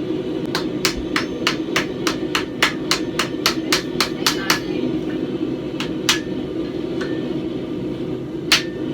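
Sanded plywood striking stick beating a hot steel S-hook to straighten its loops: a quick run of about eighteen sharp blows, four or so a second, then a pause and a few single blows near the end. A steady hum runs underneath.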